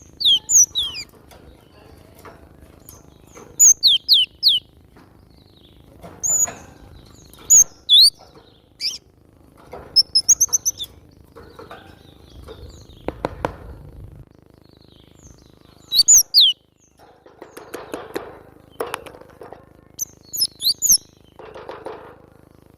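Cinereous tit (glatik batu) singing: short phrases of sharp, high whistled notes sweeping up and down, repeated in bursts with brief pauses between them. Softer scratchy rustling comes in now and then, loudest a little after the middle and near the end.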